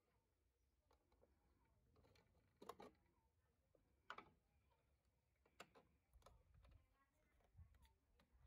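Faint plastic clicks and knocks from handling a Lab-Box film developing tank as its lid comes off and the film loading module is worked. Two sharper clicks come about a third and halfway through, then smaller taps and knocks.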